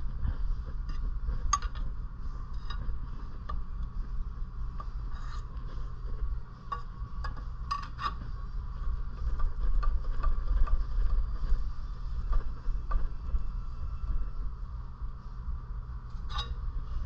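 Irregular light metallic clinks and taps of tools against a small engine's flywheel, each with a short ring, over a steady low rumble.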